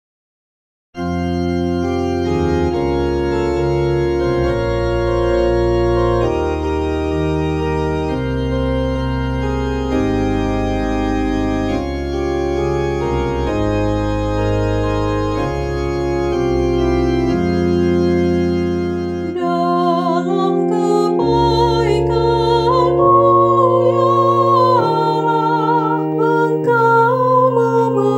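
Organ playing a hymn-style introduction in slow held chords, starting about a second in. About two-thirds of the way through, a solo singer comes in over the organ, singing the psalm refrain with vibrato.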